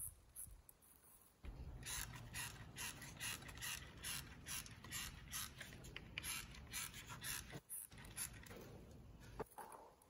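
A small corded power tool running at the base of a post, a steady hum with a rapid mechanical clicking of about three clicks a second. It stops briefly near the end, then a weaker stretch follows with one sharp click.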